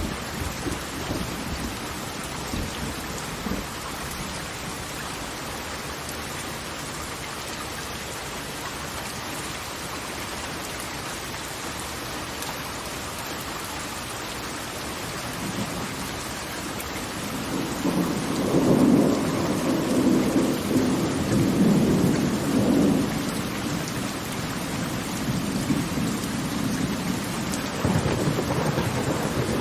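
Steady rushing water noise. About two-thirds of the way in, a deep rumble swells for several seconds and then eases, and another rumble rises near the end.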